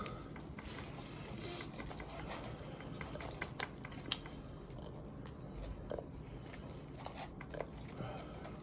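A person chewing a mouthful of cheese pide, with soft scattered clicks and smacks from the mouth.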